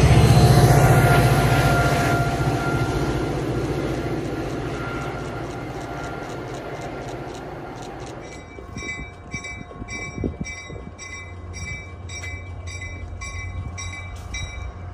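Diesel-hauled commuter train pulling away: the locomotive's engine and the wheels on the rails are loud at first, then fade steadily as the train recedes. From about eight seconds in, a quieter bell-like ring repeats about two and a half times a second.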